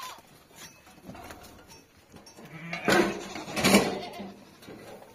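Bleating sheep or goats: two loud, harsh calls close together about three seconds in, with fainter sounds between.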